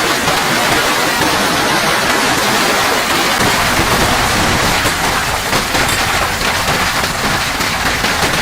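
Heavy rain pouring down: a loud, steady hiss made of countless drops pelting a surface.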